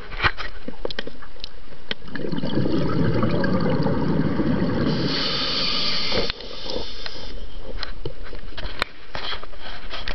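Rushing, churning water with scattered knocks and clicks, heavier and deeper for a few seconds near the middle, and cutting out briefly twice near the end.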